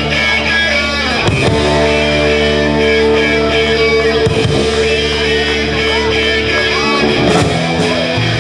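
Live rock band playing a punk song: electric guitar chords held for several seconds at a time over bass and drums.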